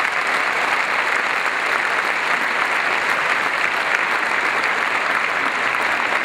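Steady crowd applause greeting a pair of figure skaters as they are announced to skate.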